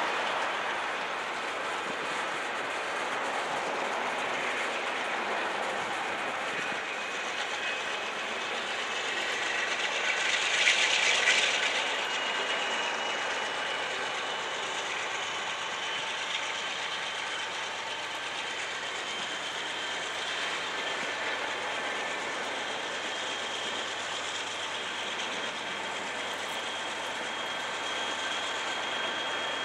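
Freight train of flatcars loaded with steel pipe rolling past: a steady rush of steel wheels on rail with some clickety-clack, and thin, steady high-pitched tones over it. It swells louder for a couple of seconds about ten seconds in.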